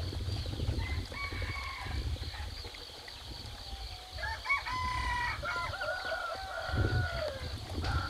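A rooster crowing: one long, multi-part crow starting about four seconds in, after a shorter call about a second in, over a steady low rumble.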